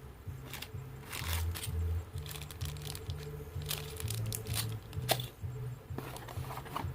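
Background music with a stepping bass line, over irregular crinkling and tearing of packaging being opened, the loudest rip about five seconds in.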